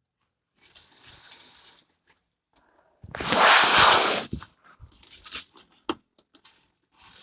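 Model railway train running faintly, then a loud crunching clatter about three seconds in as it crashes and the wagons derail, followed by scattered small plastic clicks.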